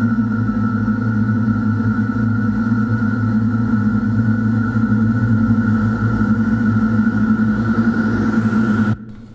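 Loud, steady sound-design drone of several held low and middle tones, with a rising hiss swelling over its second half. The whole drone cuts off abruptly near the end.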